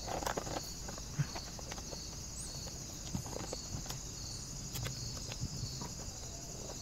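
Scattered light clicks and knocks of gloved hands handling the battery and plastic housing of an electric knapsack sprayer, over a steady chorus of crickets.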